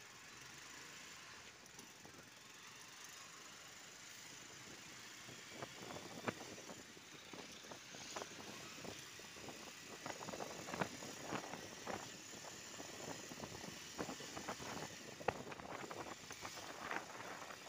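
Faint traffic noise heard from a moving motorcycle: a steady hiss, joined from about five or six seconds in by irregular crackles and knocks on the microphone that grow louder.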